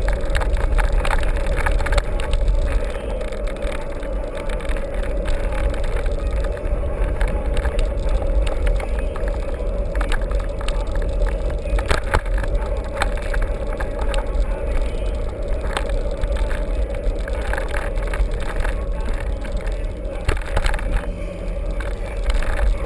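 Mountain bike being ridden over rough ground: a steady low wind rumble on the microphone, a steady hum, and frequent rattles and knocks from the bike.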